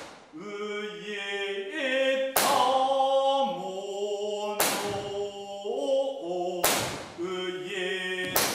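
A man chanting a kyogen song unaccompanied, in long held notes that step up and down in pitch. Loud sharp knocks cut in about every two seconds.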